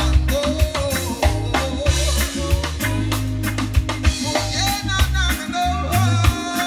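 Live reggae band heard through a Danley SM80 and TH118XL PA rig: heavy sub-bass, drum kit, electric guitar and keyboards, with a singer's voice over the top.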